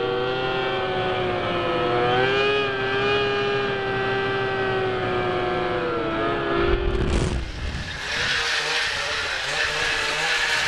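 A snowmobile engine running hard at high revs, its pitch holding high and wavering slightly. About seven seconds in the sound changes abruptly after a low thump to a loud hissing rush, with the engine fainter underneath.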